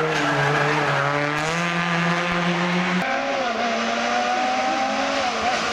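Rally car engines running at high revs: one car holds a steady note that steps up slightly partway through, then about three seconds in the sound cuts to a Lancia 037 whose engine runs at a higher, slightly wavering note.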